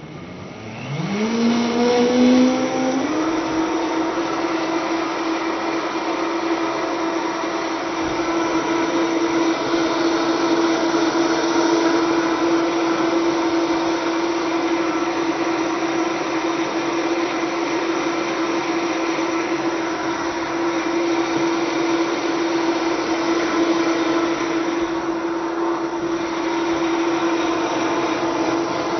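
Countertop blender motor blending a cooked millet mixture. It spins up over the first couple of seconds, runs steadily at full speed, then winds down right at the end.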